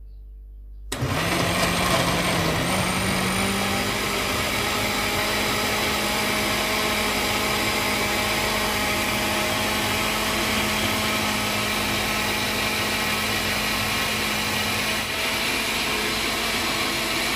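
Electric countertop blender with a glass jug switching on about a second in and running steadily as it purées kiwi, banana and milk. Its motor pitch rises slightly over the first couple of seconds as it gets up to speed, then holds level.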